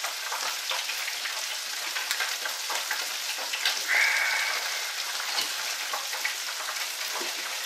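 Crab wontons deep-frying in oil in a home deep fryer: a steady crackling sizzle with many small pops. A brief louder hiss comes about four seconds in.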